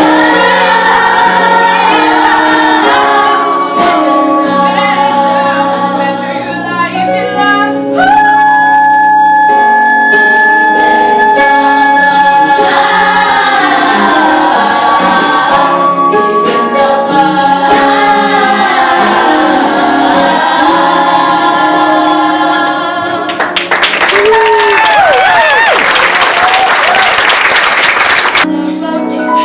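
A group of children singing a show tune together over musical accompaniment, holding one long note partway through. Near the end a loud noisy burst lasting about five seconds rises under the voices.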